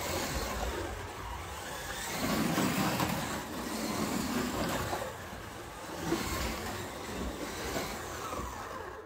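Carrera Digital slot cars running on the track, their small electric motors whirring and swelling as they pass, with the loudest surge about two seconds in.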